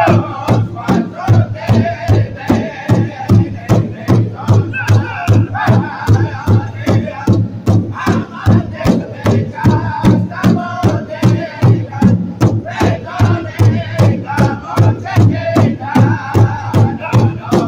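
Powwow drum group: a large powwow drum struck in unison at a steady beat of about three strokes a second, with a chorus of men singing high over it.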